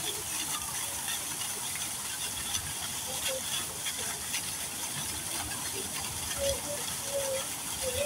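Steady rushing hiss of running water at a koi pond, with faint distant voices near the end.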